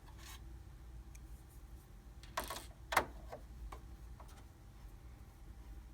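Screws being taken out of a printer's gray bar with a Phillips screwdriver: faint small clicks, with a short rattle about two and a half seconds in and a sharp click just after.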